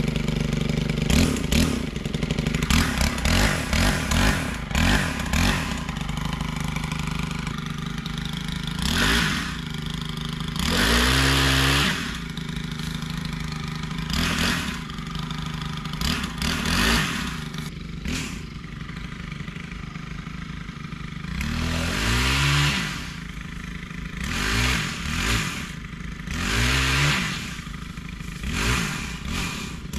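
Stihl HT 131 pole saw's 4-MIX engine test-run after reassembly of its drive shafts and gear head. It runs steadily and is revved about a dozen times, each rev rising in pitch and falling back.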